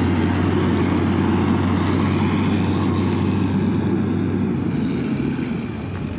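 Motor grader's diesel engine running steadily as it pushes and spreads soil, growing slightly fainter toward the end.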